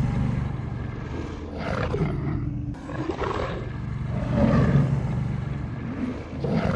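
Wolves growling low, in repeated rumbling swells that rise and fade every second or two.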